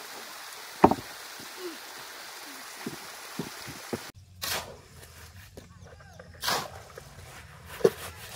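Stream water running steadily, with one heavy thud a little under a second in as a plank is dropped across the gap in the embankment. After a cut, shovels scrape and scoop through a pile of sand and cement mix in a few short strokes.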